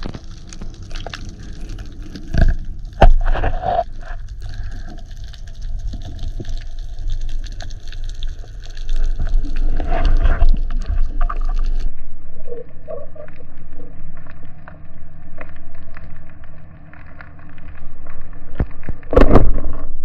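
Underwater sound heard through a camera housing: a steady wash of water with scattered clicks and knocks from the diver and his speargun. About 19 seconds in, a single loud thump as the speargun fires at the school of bonito.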